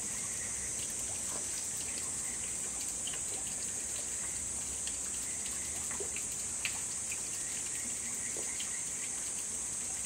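Water trickling and dripping over rocks, with many small irregular drips and ticks over a steady high-pitched hiss.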